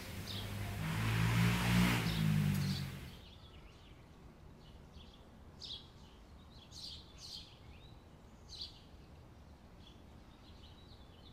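Birds chirping now and then. In the first three seconds a motor vehicle's engine hum swells, then cuts off suddenly.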